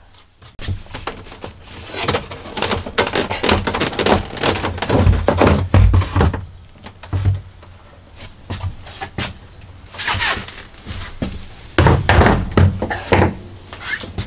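Handling noise as a plastic shower pan is lifted out of its wooden stud framing: irregular knocking, scraping and rustling, with a few heavy thumps about five to six seconds in and again near twelve seconds.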